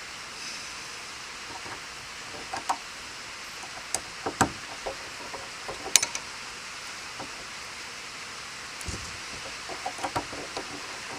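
Scattered light clicks and knocks of hand tools and metal latch parts while a new surface-mount cam latch is fitted to a boat compartment lid and its fastening is snugged tighter. The sharpest click comes about six seconds in. A steady hiss of rain runs underneath.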